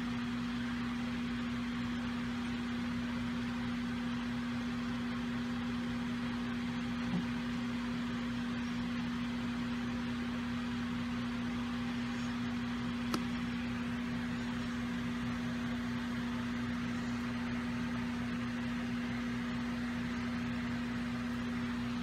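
Steady machine hum with one low tone over an even hiss, and two faint ticks partway through.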